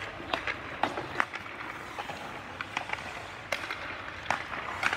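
Irregular sharp clacks of hockey sticks and pucks striking on the ice, over a steady background hiss.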